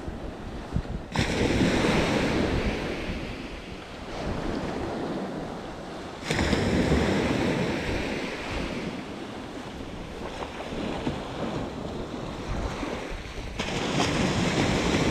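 Small waves breaking and washing up a sandy beach, with wind buffeting the microphone. The surf swells sharply three times, about a second in, about six seconds in and near the end, and ebbs away between.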